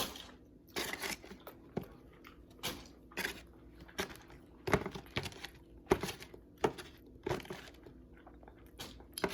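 Close-up eating sounds: chewing and biting into chicken wings, in short irregular bursts about once or twice a second.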